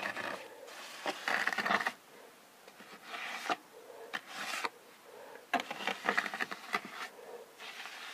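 A hand trowel scraping and smoothing wet concrete against a concrete-block wall, in short strokes with pauses between them.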